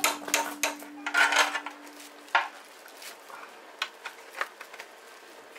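Light clinks and clatter of dishes and utensils. The clinks come thick in the first two seconds or so, then only now and then.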